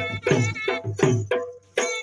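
Traditional folk drumming: ringing, pitched drum strokes about four a second, breaking off briefly about a second and a half in and starting again just before the end.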